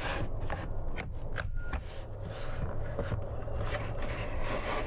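Plastic center-console trim bezel being pried up by hand: scraping and rubbing of plastic on plastic, with a few sharp clicks as its metal retaining clips work loose. A steady low hum runs underneath.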